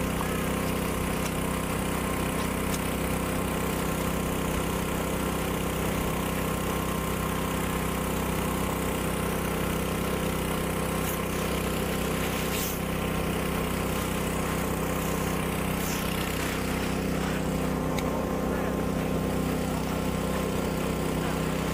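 An engine running steadily at idle, a constant hum with no change in pitch.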